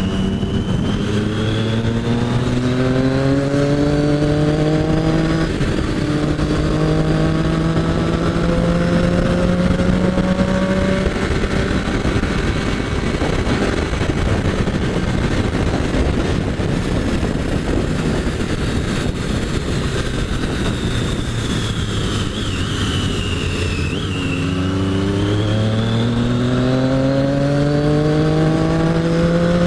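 Sport motorcycle engine pulling hard through the gears, its pitch climbing and dropping back at each upshift, with heavy wind rush on the microphone. In the middle it eases to a cruise where the wind noise takes over, and near the end it climbs through the gears again.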